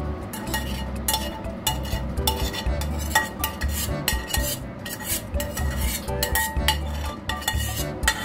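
Metal spoon scraping and clinking against the inside of a metal pan in repeated strokes, scraping out the last of a thick chilli sauce.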